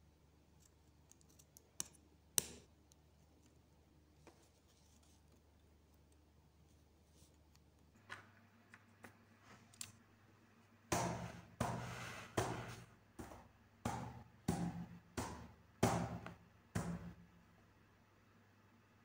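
Typing on a laptop keyboard: a run of about eleven sharp, uneven keystrokes over some six seconds in the second half. Before that come a couple of sharp clicks and a few faint ticks over a low steady hum.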